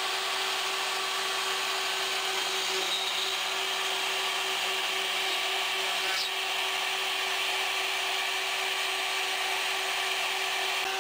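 CNC router spindle running steadily while its bit cuts into a wooden board: a steady tone over an even hiss.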